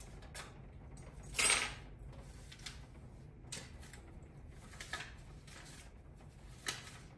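A metal cash box being handled and paper banknotes rustled: scattered light clicks and rustles, with one louder scraping rustle about a second and a half in, over a low steady hum.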